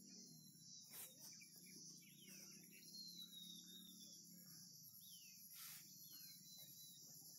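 Faint hillside outdoor ambience: a steady high insect drone with a few short, falling bird chirps scattered through it, over a low steady rumble.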